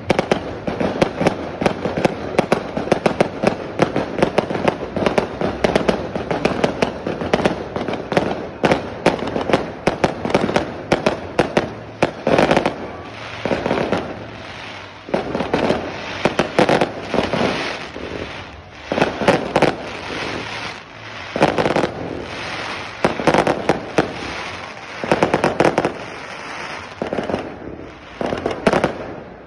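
Aerial fireworks going off in a dense barrage: rapid sharp bangs one after another, in louder clusters every couple of seconds in the second half.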